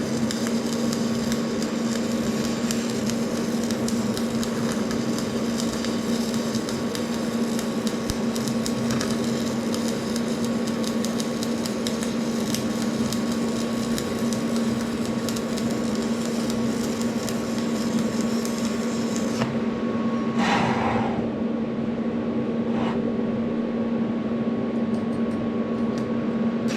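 Electric welding on a cast iron differential carrier: a steady crackling arc over the welder's hum, building up metal for a new bearing. The crackle stops about twenty seconds in, leaving the hum, and two short scratchy bursts follow.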